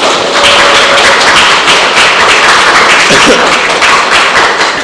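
Audience applause: many hands clapping at once, loud and dense.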